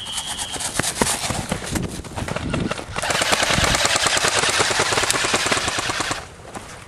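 Airsoft guns firing: scattered single shots at first, then a stretch of rapid full-auto fire lasting about three seconds that stops suddenly.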